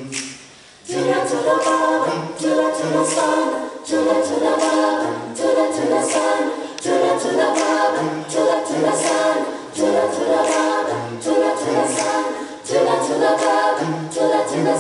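Mixed a cappella choir singing in several voice parts, the full group coming in together about a second in, with a low bass part moving in short repeated notes underneath.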